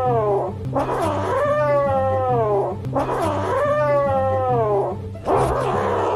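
Three drawn-out cat meows, each about two seconds long and falling in pitch at the end, repeating at even intervals over music with a steady low bass line.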